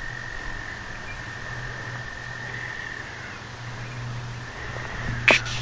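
A frog's long, steady, high trill that fades out past the middle, over a low steady hum, with a sharp click near the end.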